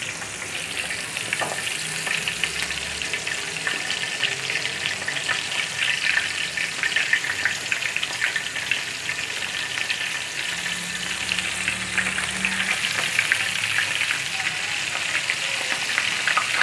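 Breadcrumb-coated beef kebabs on wooden skewers deep-frying in hot oil in a wok over medium heat, sizzling with a dense, continuous crackle that grows gently louder.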